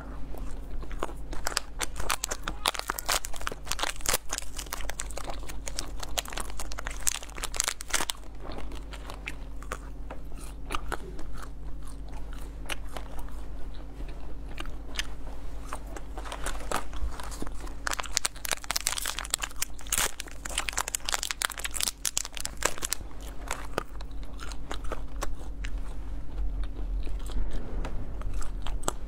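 Close-miked biting and chewing of soft milk-bean sweets with almond pieces inside: a dense run of small crunches and mouth clicks.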